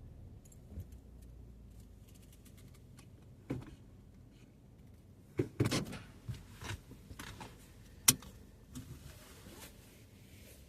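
Handling noises inside a car: a run of clicks, knocks and rustles, the sharpest click about eight seconds in, over a low rumble that fades out about three to four seconds in.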